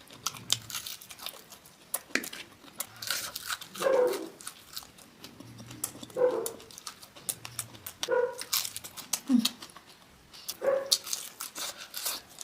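Close-miked eating sounds: wet chewing and smacking clicks, broken by about five short pitched calls a second or two apart.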